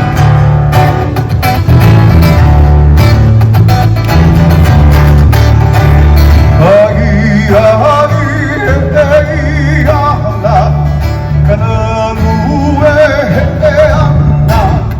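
Live Hawaiian music: strummed guitars over a steady bass line, with a voice starting to sing about seven seconds in, held notes wavering with vibrato.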